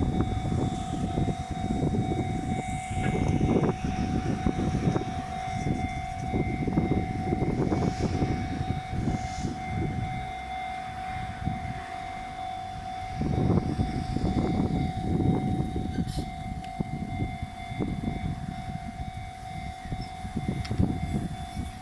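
A railway level-crossing warning alarm ringing steadily. Under it an Enoden (Enoshima Electric Railway) train rumbles and clatters over the rails, the noise swelling and fading several times.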